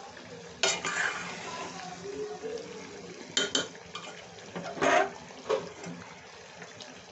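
Metal spoon scraping and clinking against a metal pot as mango and green-chilli pickle is stirred over low heat: a handful of sharp clinks, loudest about five seconds in, over the faint sizzle of the cooking pickle.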